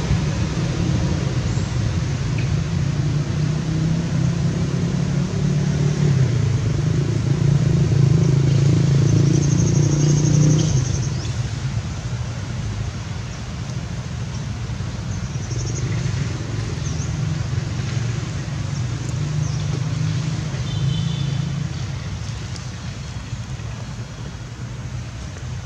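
Low steady rumble of a motor vehicle engine, growing louder for a few seconds and then falling away about ten seconds in.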